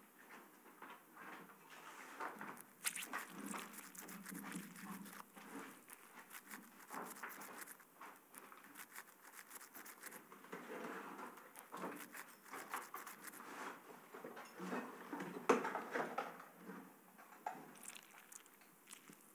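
Faint, irregular rustling and scattered clicks of movement and handling in a small, enclosed space, with one sharper click about fifteen seconds in.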